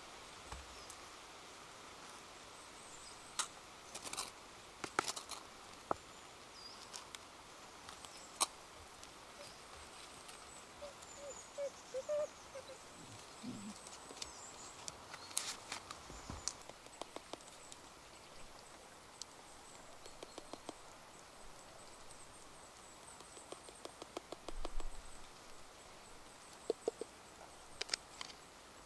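Outdoor ambience with a steady hiss and faint high bird chirps. Scattered sharp clicks and knocks run through it, with a quick run of light ticks near the end.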